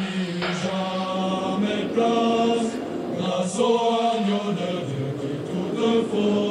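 Background music: chanted choral singing holding long, slow notes in low voices.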